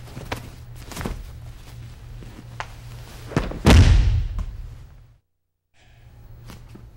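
Feet stepping and shuffling on a training mat, then a heavy thud about three and a half seconds in as a body is taken down onto the mat, under a steady low hum. The sound drops out completely for about half a second near the end.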